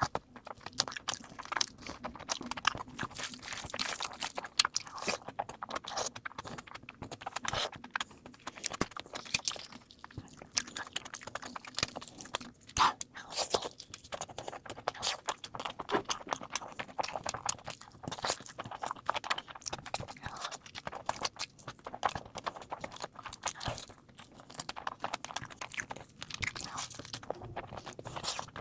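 Close-miked eating sounds: rapid, irregular crunching, biting and chewing, sped up to double speed.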